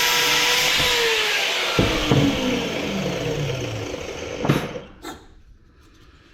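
A power tool cutting metal runs steadily, then is released about a second in. Its motor winds down with a falling pitch over the next few seconds, with a few sharp knocks of metal being handled.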